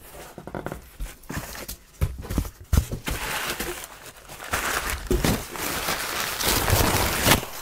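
Crumpled packing paper rustling and crinkling as it is pulled by hand out of a cardboard box, with scattered knocks of handling. The rustling gets denser and steadier partway through.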